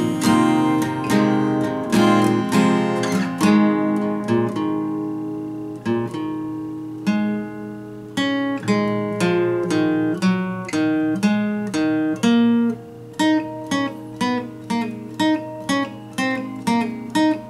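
Acoustic guitar being strummed in an improvised instrumental: chords left to ring, sparser in the middle, then short, clipped strums about two a second in the last few seconds.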